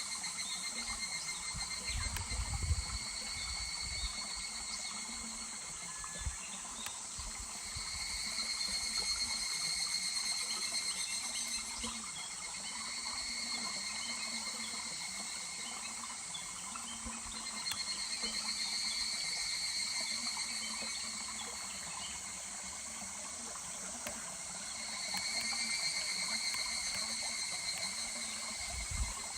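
Higurashi evening cicadas calling, overlapping choruses of rapidly repeated notes that swell and fade three times, about 8, 18 and 25 seconds in, over the steady murmur of a small stream. A brief low rumble comes near the start.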